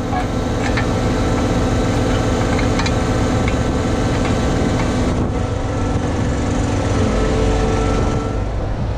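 Liebherr mobile crane's engine and hydraulics running steadily while the crane lifts the ballast unit, a constant hum with a held high tone and a few light clicks. The hum deepens slightly about seven seconds in.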